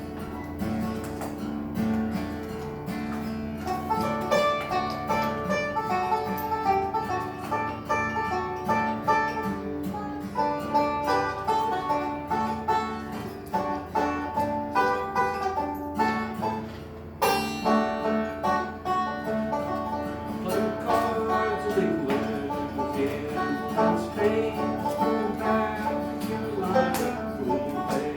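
A bluegrass band playing live, with picked string instruments carrying the tune.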